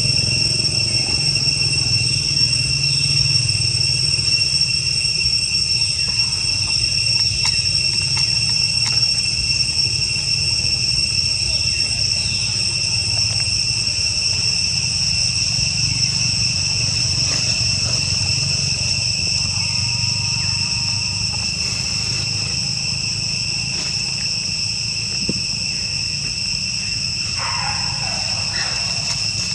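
Steady insect drone of two unbroken high-pitched tones, over a low steady rumble, with a short mid-pitched sound near the end.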